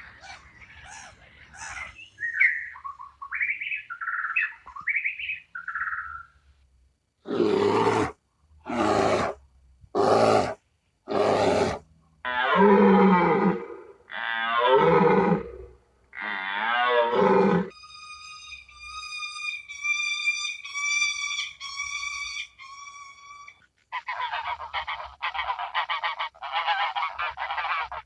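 A run of different animal calls one after another: a few short chirps, then four loud harsh calls, three long low calls, a series of high pitched wavering calls, and finally a rapid pulsing call.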